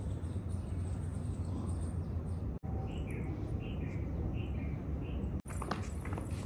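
A small bird chirping, six or so short falling chirps between about three and five seconds in, over a steady low rumble. Near the end come a few sharp thuds, bare feet landing on an exercise mat during jumping jacks.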